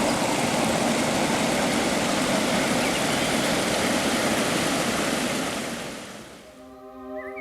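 Steady rushing water, a river or waterfall nature recording, fading out over the last couple of seconds. As it fades, a soft held musical chord comes in, with a short bird chirp at the very end.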